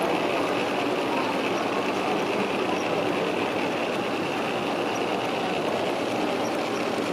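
Steady din of a busy exhibition hall, with a model train running on a layout.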